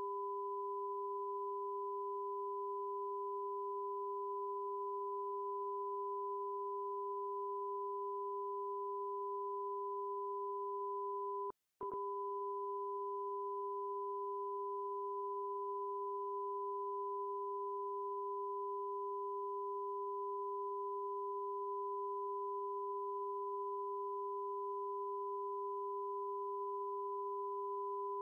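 Television test-card tone broadcast with the RAI Uno test pattern: a steady, unchanging electronic tone made of a lower pitch and a higher pitch sounding together. About twelve seconds in it cuts out for a split second with a click, then resumes unchanged.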